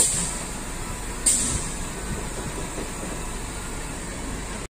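Steady low rumble and high hiss of an idling diesel truck engine, with one light click about a second in.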